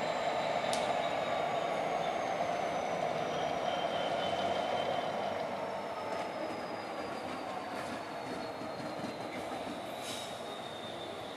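Class 66 diesel locomotive, a two-stroke V12, running as it approaches slowly hauling a dead Class 803 electric unit. Its steady running sound carries a thin high whine that slowly falls in pitch, with a sharp click about a second in and another near the end.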